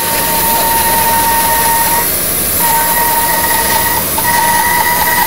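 Bandsaw blade ripping lengthwise through a green, moss-covered log, the motor and cut making a loud, steady noise with a high whine that drops out briefly about two seconds in and again around four seconds.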